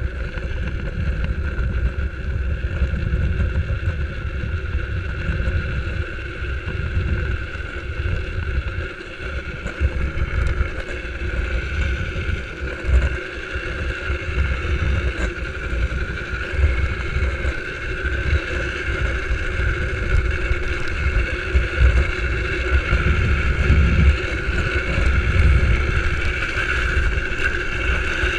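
Wind buffeting the microphone as a drift trike coasts downhill, over a steady drone from its hard rear wheels rolling on asphalt.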